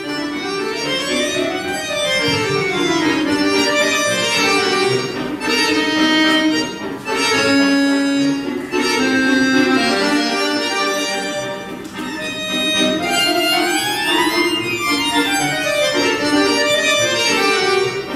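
Bayan, a Russian chromatic button accordion, played solo: a lively waltz with fast scale runs that sweep down and back up the keyboard twice.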